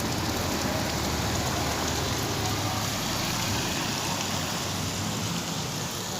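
Steady rain falling, an even hiss of drops hitting surfaces that holds the same level throughout.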